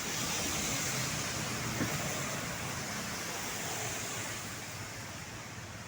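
Road traffic: a steady rush of vehicle noise with no horn or tune in it, slowly fading.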